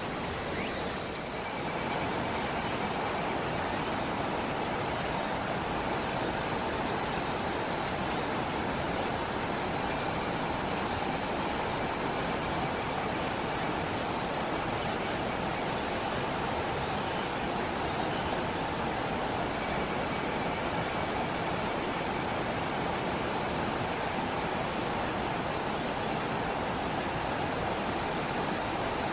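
Steady, dense high-pitched buzz of a summer insect chorus, over a steady rushing noise that comes up about two seconds in.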